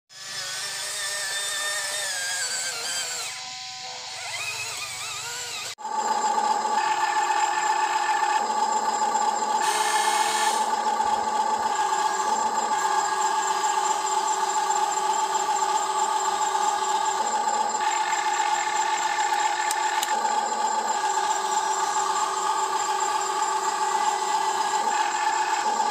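Electric motors of a Huina 1592 RC toy excavator whining as it digs and loads dirt. A steady high whine holds throughout, while lower motor tones switch on and off every second or two as the boom, arm and bucket move. For the first few seconds there is instead a wavering whine that rises and falls in pitch.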